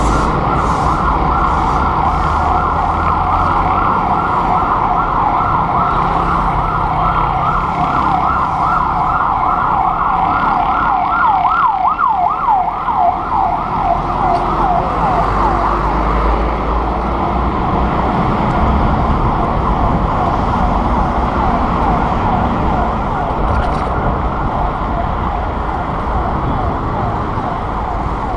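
Emergency vehicle siren wailing in rapid, repeated sweeps, growing louder toward the middle and then fading, over the rumble of city traffic and wind noise on a bicycle-mounted camera.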